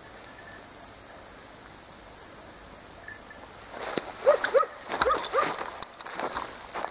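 Hunting dogs yelping and baying in quick succession, starting about four seconds in, with a few sharp clicks among the calls.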